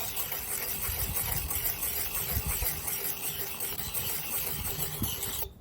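Hardened steel blade of a pair of Felco No. 2 pruning shears rubbed on a diamond sharpening plate: a steady scraping that stops suddenly shortly before the end.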